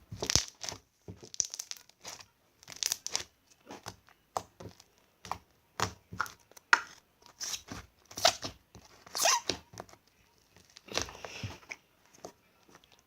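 Slime being squished and pulled by hand, giving a run of short crackly pops and rustles, irregular, about one or two a second.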